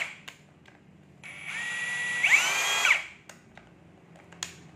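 Hitachi 18V brushless cordless rotary hammer drill run briefly with nothing in the chuck: its motor whines up about a second in, steps up higher in pitch partway through, then falls away quickly after under two seconds. A few faint clicks before and after.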